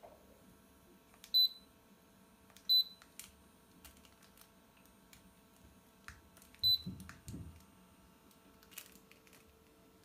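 Cool mist humidifier's electronic control panel beeping: three short, high single-tone beeps, the first two about a second and a half apart and the third some four seconds later, over a faint steady hum, with a couple of soft knocks just after the last beep.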